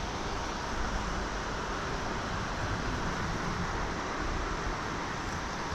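Steady rushing of flowing river water, with a low rumble underneath.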